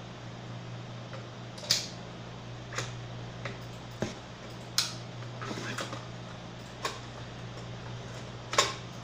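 Parts of an Epson LQ-310 dot matrix printer being handled during disassembly: about eight sharp clicks and taps of hard plastic and metal, the loudest about two seconds in, around five seconds in and near the end, over a steady low hum.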